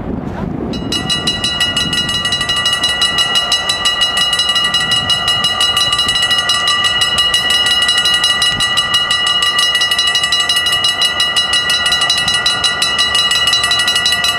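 Mechanical bells of a Dutch AHOB level crossing start ringing about a second in and keep ringing steadily with rapid, even strikes. They are the warning that a train is approaching while the red lights flash and the barriers lower.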